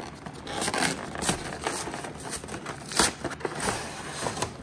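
Plastic shrink wrap being peeled and crumpled off a Pokémon card collection box: a run of crinkling and crackling with scattered sharp clicks, the loudest about three seconds in.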